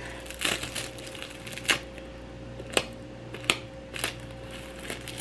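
Sheets of roasted seaweed being torn by hand and handled, crinkling, with a few sharp clicks spread through.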